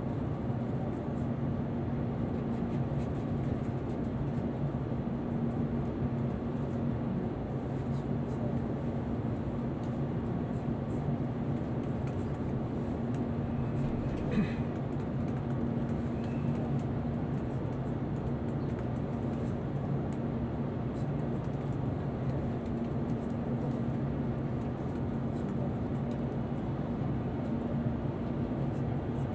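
Steady hum inside the cabin of an electric limited express train standing at a platform with its doors shut, then starting to move off slowly late on. A single short click about halfway.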